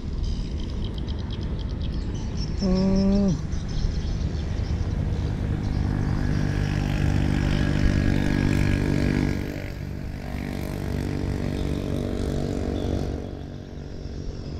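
A motor vehicle's engine hum growing louder, loudest for a few seconds in the middle and dropping off about two-thirds of the way through. A single short, low call sounds about three seconds in.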